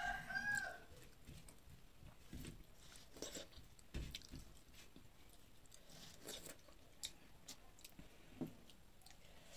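A rooster's crow ends in the first second. After that come quiet chewing and scattered small clicks and scrapes of fingers on a stainless-steel plate as a meal is eaten by hand.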